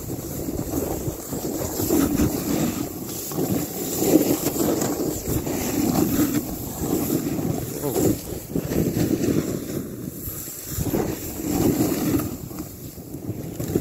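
Snowboard riding through deep powder snow: a rushing hiss of board and snow spray that swells and fades every second or two with the turns, mixed with wind on the microphone.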